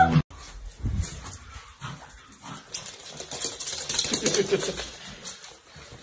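A pug moving about on a hard floor, its claws making irregular light clicks and taps.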